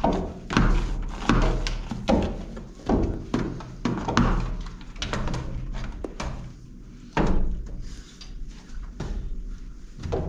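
Irregular knocks and thuds with scrubbing as a long-poled window scrubber mop is worked against window glass and its frame, over a steady low hum.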